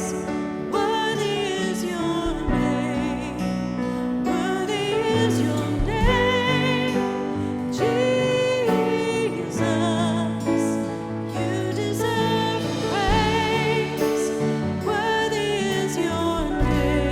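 Contemporary worship song: a solo voice singing sustained, wavering melody lines over held keyboard-style chords and a bass line.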